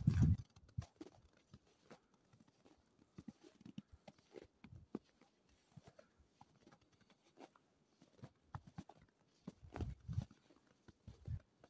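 Footsteps crunching in fresh deep snow: a few heavy, thudding steps at the start and again near the end, with faint scattered crunches in between.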